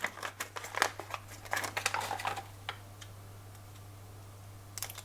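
Plastic packaging being handled and opened by hand: crinkling and quick small clicks for the first two or three seconds, then a few more clicks near the end, over a faint steady low hum.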